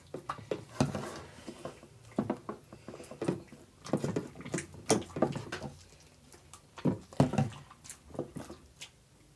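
Freshly activated glue slime being kneaded and squeezed by hand, giving irregular sticky squelches and clicks.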